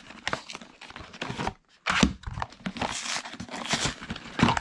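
A trading-card battle deck's cardboard box being opened by hand: paper and card rustling and scraping as the paper insert slides out, with a short pause about one and a half seconds in and a sharper knock near the end.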